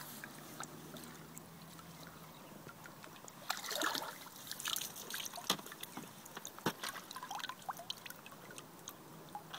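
Water splashing and trickling as a carp is released from a landing net and swims off, with water dripping from the lifted net; the loudest splashing comes about four seconds in, followed by scattered drips and clicks.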